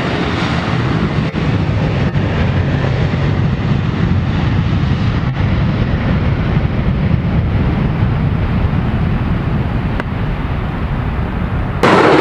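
Boeing 737 airliner's jet engines running as it rolls along the runway: a steady rumble whose high hiss slowly dwindles. About a second before the end it cuts abruptly to a louder F/A-18 Super Hornet passing low, its jet noise falling in pitch.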